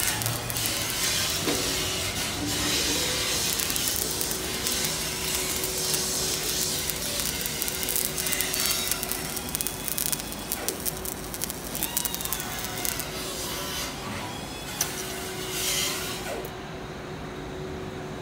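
Arc welding on the steel floor plate of a truck bed: a steady frying crackle of the welding arc as a bead is laid. The arc stops near the end.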